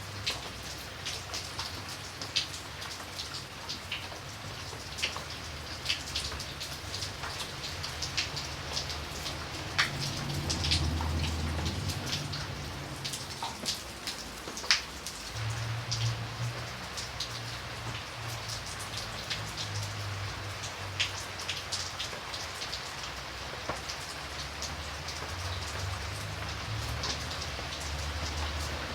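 Steady rain falling on a surface, with many individual drops ticking sharply through an even hiss. A low rumble swells about ten seconds in and again from about fifteen seconds.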